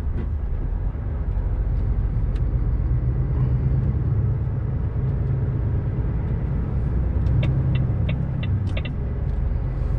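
Truck engine and road noise heard from inside the cab while driving at road speed: a steady low drone, with a quick run of light clicks near the end.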